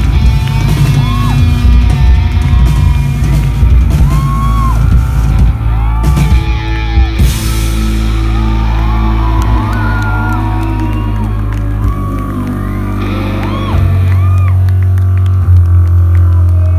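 Live rock band playing loudly: electric guitar notes bending and sliding up and down over a sustained low bass drone, which swells louder about fourteen seconds in.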